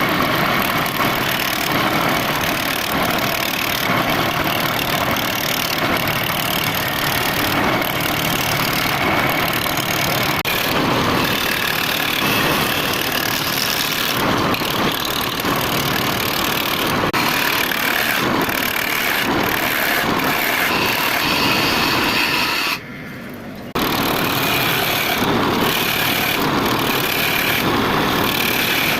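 Wood lathe running with a turning tool cutting the spinning workpiece, a steady loud hissing machine noise. It cuts out abruptly for about a second near the end, then carries on.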